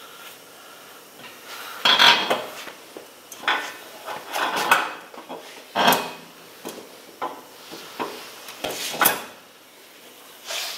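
Metal clanks and scrapes as a new ring-and-pinion set's pinion gear and bearing are pushed by hand into a Jeep's rear differential housing: a series of separate sharp knocks with rubbing, about one every second or two.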